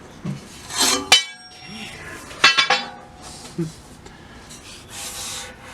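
Sharp metal clanks with a ringing tail, about a second in and again as a quick cluster around two and a half seconds, from a bicycle frame being wrestled and levered straight by hand, with softer knocks between.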